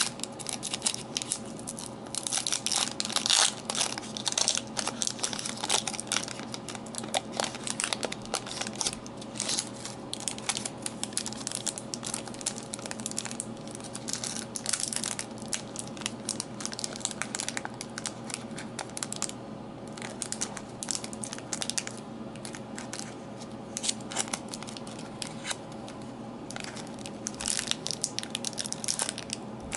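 A foil trading card pack wrapper crinkling and crackling as it is handled and torn open by hand. The crackling comes in quick runs, with a brief lull about two-thirds of the way through.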